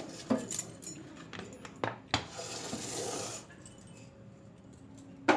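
Kitchen utensils clinking against a bowl four times, then about a second of soft rustling.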